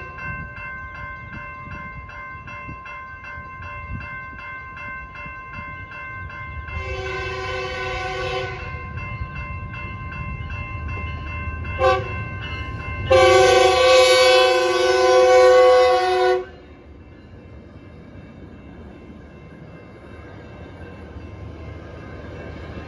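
Grade-crossing bells ringing steadily while an approaching Metrolink train sounds its multi-note horn in three blasts: a long one, a brief toot, then the loudest, a long blast of about three seconds. The train's rumble builds near the end as it reaches the crossing.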